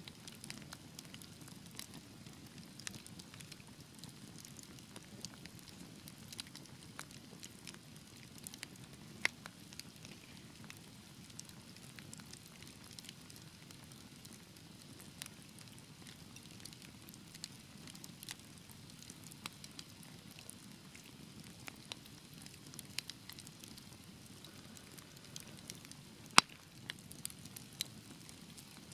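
Wood fire burning in a fireplace: a steady low hiss of the flames with frequent irregular crackles and small pops, one pop standing out sharply near the end.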